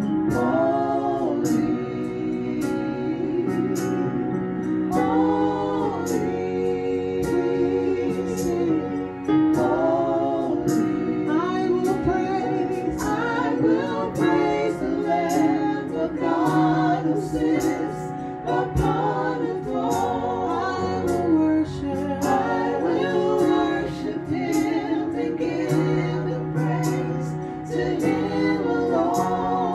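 Gospel worship song: women singing with vibrato over sustained chords played on a Roland electronic keyboard.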